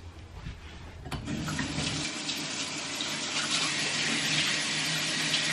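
A click, then water running steadily from about a second in.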